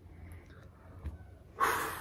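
A person's short, forceful breath, a snort or sharp exhale, about one and a half seconds in, fading quickly.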